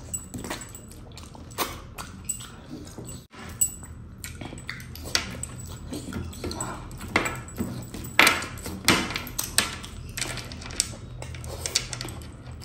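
Close-up eating sounds: a man chewing mutton with wet mouth clicks and lip smacks at irregular moments, along with his fingers scraping and squishing through thick gravy on the plate.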